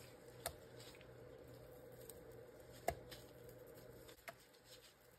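Gloved hands quietly handling sliced tri tip on a wooden cutting board: soft squishes and three light taps, the sharpest about three seconds in, over a low steady hum.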